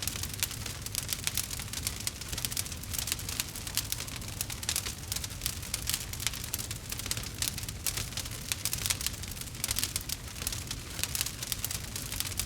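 Burning logs in a fireplace crackling continuously, with dense, irregular small crackles over a steady low rumble.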